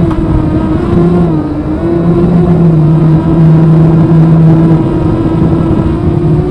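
Brushless motors and propellers of a 250-size FPV quadcopter whining steadily in slow, low flight. The pitch dips briefly about a second and a half in, then holds steady.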